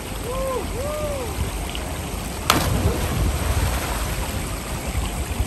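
A person jumping from a high boulder hits the river feet-first about halfway through: one sharp splash over the steady rush of flowing river water.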